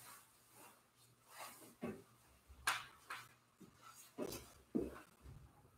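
Faint, scattered knocks and clicks of objects being handled at an altar, about half a dozen short sharp sounds spread unevenly.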